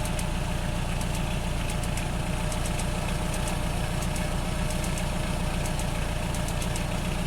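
1985 Nissan 720's Z24 2.4-litre twin-plug four-cylinder engine idling steadily, with faint irregular high-pitched ticks over it: a spark plug wire is arcing through its tape.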